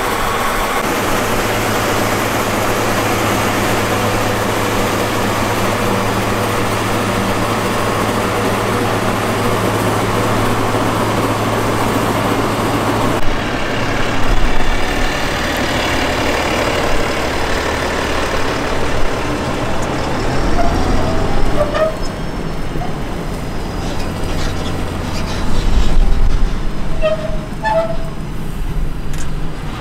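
A motor vehicle's engine running steadily with a low hum; about thirteen seconds in the sound changes and becomes more uneven.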